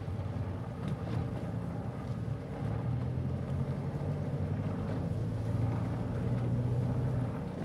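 Trawler yacht's diesel engine running under power as the boat maneuvers to set its anchor: a low, steady drone that swells about three seconds in and again later, over light wind and water noise.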